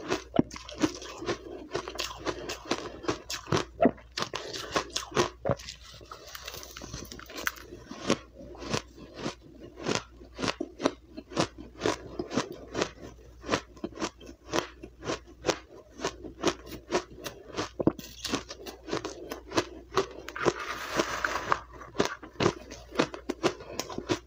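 Close crunching of powdery, crushed refrozen ice being bitten and chewed, a continuous run of sharp crunches about two or three a second.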